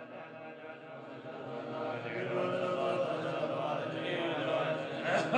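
Tibetan Buddhist monks chanting together in low, sustained voices, growing louder about two seconds in. A single sharp strike sounds near the end.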